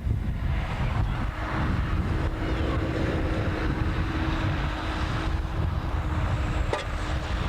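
Wind buffeting the camcorder microphone in a low, steady rumble, with a thin steady hum running through most of it and a brief click near the end.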